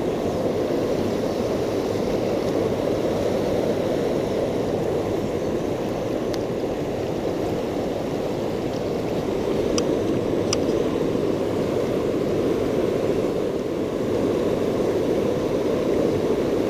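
River water rushing steadily over and below a weir, with turbulent white water close by. A few faint ticks sound about six and ten seconds in.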